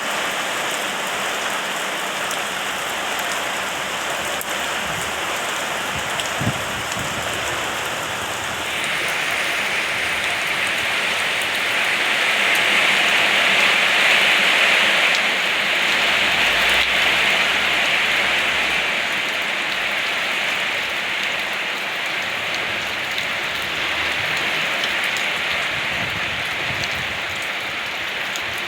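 Steady rain falling and pattering on surfaces. It grows heavier about a third of the way in and is heaviest around the middle.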